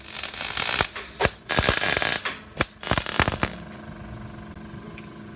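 Handheld plasma cutter cutting into a metal beer keg: the arc gives loud hissing in three or four bursts with sharp cracks between them. It stops a little over three seconds in, leaving a quieter steady hum.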